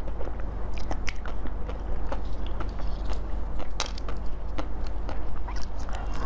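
Close-miked eating: chewing of a purple-coated dessert with a soft white filling, broken by scattered sharp crackles and clicks, and a fresh bite near the end.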